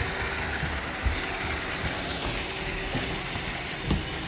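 Robot vacuums running, a steady mechanical whir from their motors and brushes, with a couple of light knocks about one and four seconds in.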